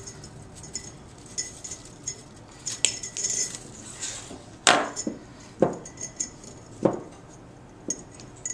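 Coiled craft wire jingling and clinking as it is handled and bent around a glass mason jar, with a few sharper knocks from about halfway through, the first the loudest.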